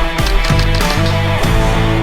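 Heavy rock music with distorted electric guitar chords and drums.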